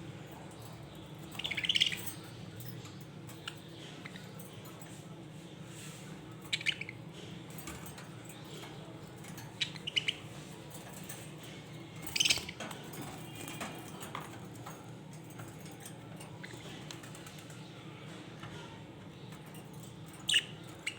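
Budgerigars giving short, scattered chirps every few seconds over a steady low background hum.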